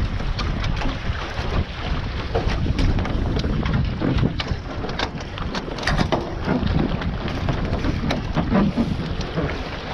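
Wind buffeting the microphone aboard a Taipan 5.7 sailing catamaran through a tack, with water rushing along the hulls and frequent short knocks and rattles from the rigging, sheets and sail as the boom swings across.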